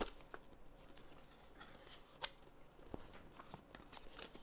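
Faint handling of product packaging being worked open, with a few light clicks and taps.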